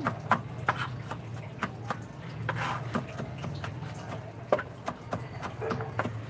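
Kitchen knife chopping on a plastic cutting board: quick, uneven taps about two or three a second as food is minced, one harder chop near the middle, over a low steady hum.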